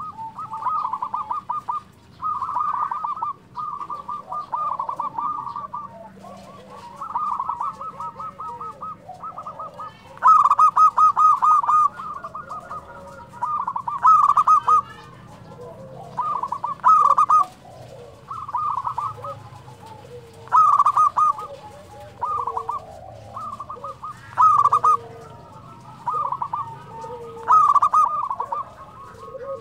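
Zebra dove (perkutut) cooing: short phrases of rapid, staccato coo notes, repeated every two or three seconds. Fainter, lower bird calls fill the gaps between phrases.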